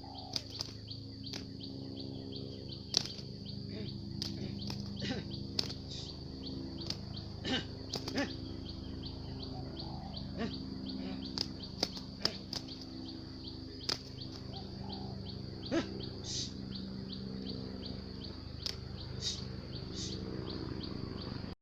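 Spotted doves (tekukur) cooing in low, repeated phrases, with scattered sharp clicks and a steady high-pitched whine throughout.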